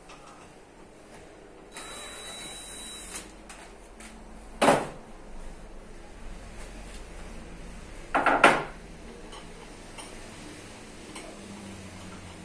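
A cordless drill runs briefly, about a second and a half, with a steady high whine. Then workshop handling knocks: one sharp knock about halfway through and a quick cluster of louder knocks a few seconds later, the loudest sounds here.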